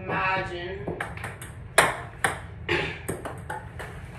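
Ping pong balls bouncing and clicking: a string of sharp taps, the loudest a little under two seconds in. A short voice is heard at the start.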